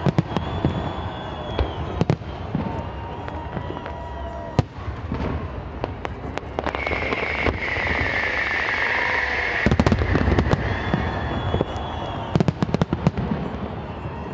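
Aerial fireworks display: repeated sharp bangs of bursting shells and crackling, with long whistling tones over them. A loud high whistle runs for about three seconds in the middle, and quick clusters of bangs follow near the end.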